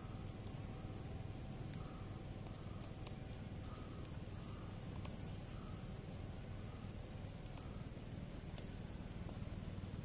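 Faint open-air ambience: a steady low rush, with a soft note repeated about every half second and a few scattered high chirps.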